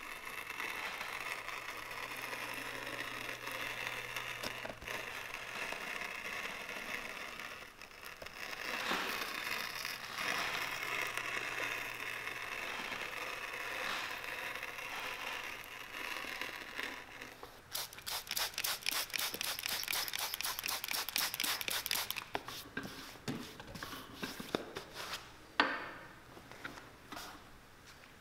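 Leather sole edge being trimmed on an edge-trimming machine: a steady rasping scrape of the cutter on leather. About two-thirds of the way through it turns into a run of fast clicking, followed by a few scattered clicks and taps near the end.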